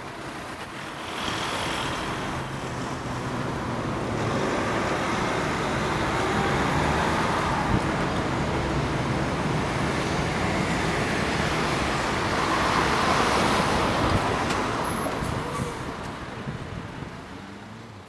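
Road traffic on a city street: a continuous wash of car engine and tyre noise that swells as vehicles pass, loudest a little after halfway, then fading near the end.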